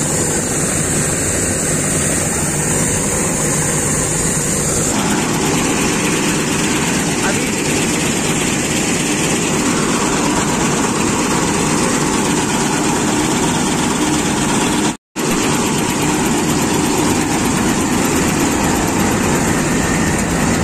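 Combine harvester running close by at work: a loud, steady din of engine and threshing machinery. The sound cuts out for a split second about fifteen seconds in.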